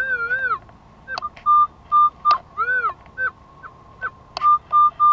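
Minelab CTX 3030 metal detector sounding target tones as the coil is swept over a buried signal: a string of short high beeps at one pitch, with a couple of longer warbling tones that rise and fall, and a few sharp clicks.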